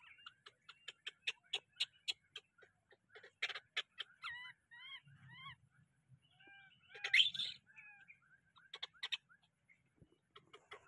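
Baby monkey giving distress calls: runs of short, high squeaks and chirps, some rising and falling in pitch, with one louder squeal about seven seconds in.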